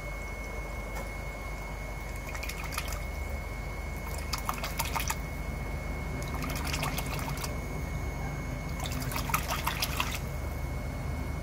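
Water splashing and trickling in a shallow plastic tub as a hand-held redclaw crayfish is dipped and moved through it, in four short spells about two seconds apart, over a steady low hum.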